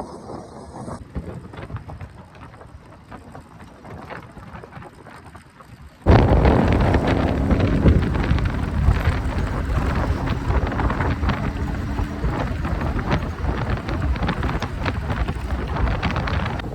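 Noise of a moving car. About six seconds in it jumps suddenly to a loud rush of wind buffeting the microphone, with dense crackling and road rumble.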